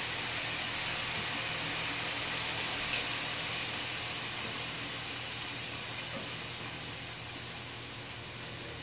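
Steady hiss of food cooking in a pot or pan on the stove, growing slightly quieter toward the end, with one light click about three seconds in.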